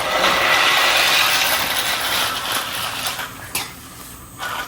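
Battery-powered toy train's small gear motor whirring and its plastic wheels rattling along the track. The sound fades out about three seconds in, followed by a couple of light clicks.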